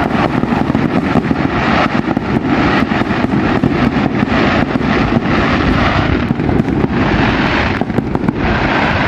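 Fireworks display: a dense, continuous run of bangs and crackling pops over a heavy low rumble.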